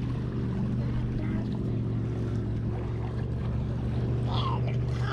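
Motorboat engine running steadily on the lake: a low, even drone that neither rises nor falls.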